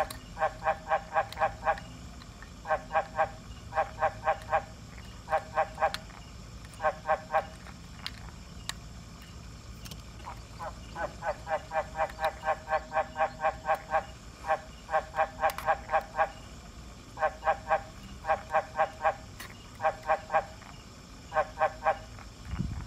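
A frog calling: short croaks at about five a second, in runs of a few to a dozen or more, separated by pauses, with a longer break about eight seconds in.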